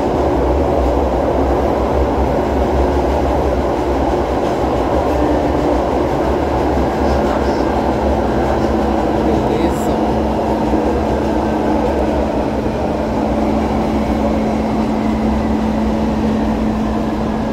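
Ride noise inside a Metrô-DF série 1000 electric metro train running along the line: a steady rumble of wheels and running gear, with a steady hum coming in about a third of the way through.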